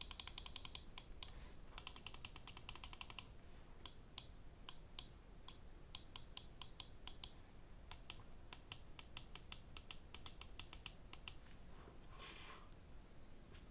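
Pulsar X2V2 Mini gaming mouse buttons clicking: fast runs of clicks in the first few seconds, then slower single and paired clicks. A short scraping noise comes near the end.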